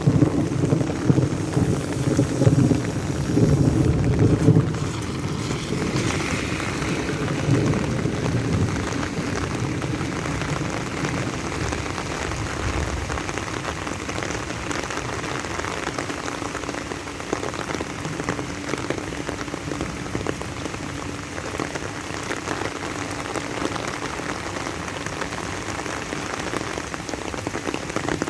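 Steady rain falling and pattering on surfaces, an even dense hiss. A low rumble under the rain in the first few seconds fades out.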